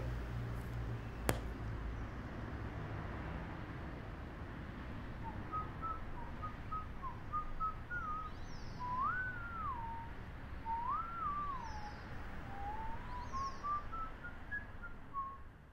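A person whistling a slow tune: short stepped notes, then two long swooping glides, then notes climbing step by step. It starts about five seconds in, over a low steady rumble. A single sharp click comes about a second in.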